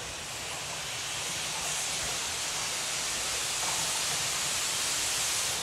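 Steam hissing steadily from a small saddle tank steam locomotive, growing louder and then stopping abruptly near the end, with a low rumble underneath.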